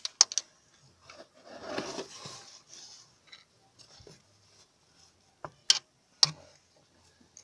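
Sharp metallic clicks and taps of hand tools working on the driveshaft joint: two near the start and two more near the end, with a softer rustle of handling about two seconds in.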